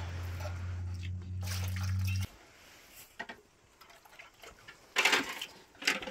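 Steady low hum of a small electric motor with liquid trickling, cutting off suddenly about two seconds in. Faint clicks follow, then a brief loud noise about five seconds in.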